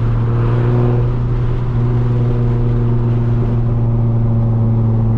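Nissan 350Z's V6 engine running steadily at a constant cruising speed, heard from inside the cabin.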